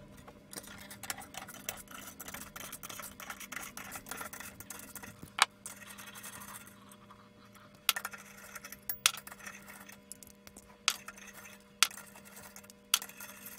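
Small metal clinks and scrapes of bolts and a spanner being worked on the bolted top flange of an electron-microscope column, with about six sharper clicks spaced through, over a faint steady hum.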